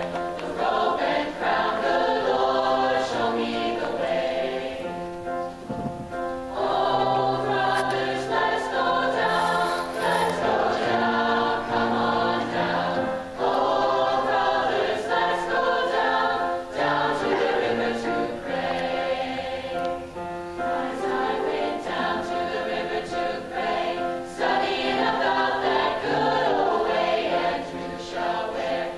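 Mixed high school choir of male and female voices singing in harmony. Long held chords come in phrases, with brief breaks between them.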